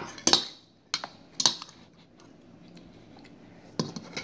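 A metal fork clicking and tapping against an instant-noodle cup while eating: several sharp clicks in the first second and a half, a quiet gap, then two more near the end.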